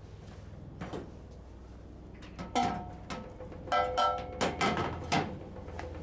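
Metal clanks and knocks that ring briefly, a scattered run of them from about halfway through, as steel parts and a scroll compressor are handled on a metal truck bed. A steady low hum runs underneath.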